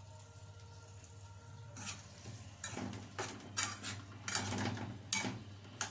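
Kitchen utensils and dishes clattering: a run of irregular knocks and clinks that begins about two seconds in, after a quiet start with a low steady hum.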